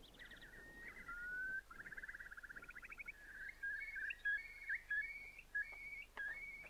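A bird calling: a slightly rising whistle, then a rapid trill, then a run of short whistled notes stepping up and down in pitch.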